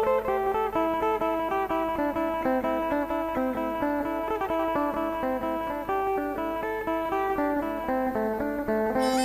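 Thai phin, the Isan plucked lute, playing a quick melody of plucked notes over a steady drone note. Just before the end a reedy wind instrument joins in.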